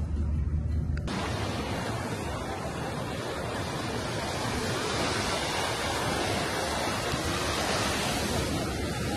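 Ocean surf breaking on a rocky shore: a steady rushing wash of waves. For the first second a low car-interior rumble runs, then it cuts off abruptly.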